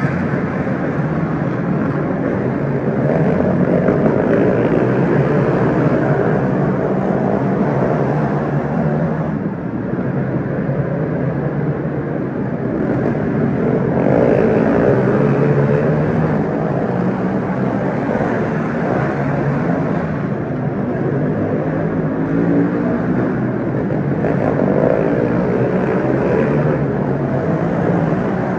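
Pack of racing karts running flat out on an indoor dirt oval, many small engines sounding together at once. The sound grows louder three times, about ten seconds apart, as the pack comes by.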